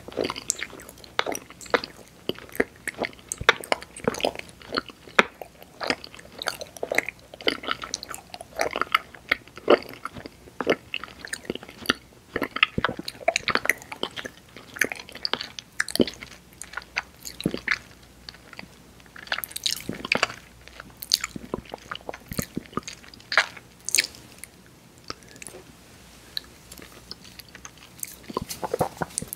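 Close-miked chewing and biting of candy, a dense run of sharp mouth clicks and bites that thins out a little late on.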